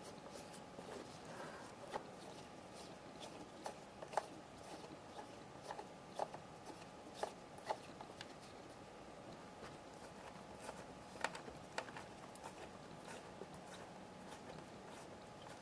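Faint, scattered clicks and scrapes of a small screwdriver turning screws into the plastic back casing of a Teddy Ruxpin toy.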